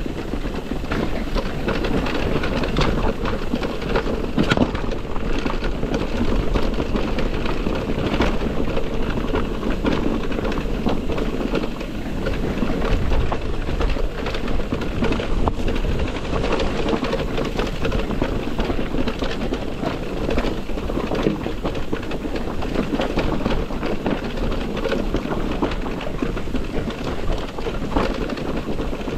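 Electric mountain bike being ridden over a rough trail: a steady rumble of tyres with constant rattling and many small knocks.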